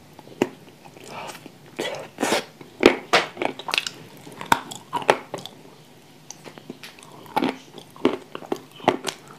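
Person biting into and chewing dry, crumbly chunks of edible clay: sharp crunches in quick clusters, with quieter chewing between.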